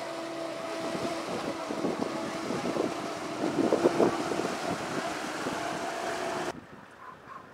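Small passenger ferry's engine running with a steady hum as it manoeuvres alongside, its propeller wash churning the water, loudest about four seconds in. The sound cuts off suddenly near the end.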